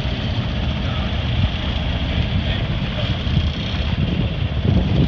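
Wind buffeting the microphone on the deck of a sailboat under way, a steady loud rushing over a low rumble.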